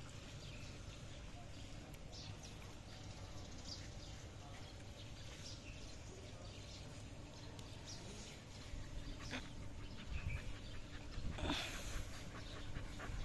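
Young dogs scuffling and digging in loose sand, with short scratchy sounds scattered over a low rumble. It grows louder in the last few seconds, with a sharper scrape near the end.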